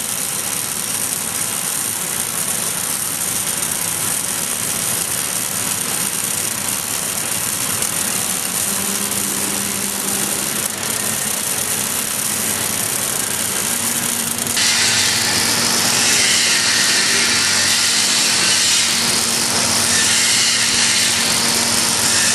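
Gas metal arc (MIG) welding arc of an automatic pipe-welding bug, fed by an EWM Phoenix coldArc power source, laying the open root pass on a steel pipe. It makes a steady hiss with a faint hum underneath. About two-thirds of the way through, the hiss turns brighter and slightly louder.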